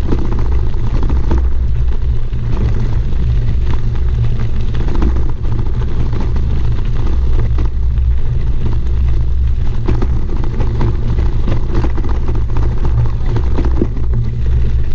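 Deep, steady rumble of wind and road vibration on a bicycle-mounted camera's microphone, riding over a gravel road, with frequent small clicks and rattles from the tyres on the gravel.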